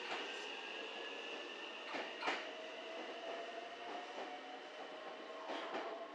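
Nagoya Railway (Meitetsu) electric train pulling away from the station, its motor whine slowly rising in pitch as it gathers speed, with a few sharp clacks of wheels over rail joints.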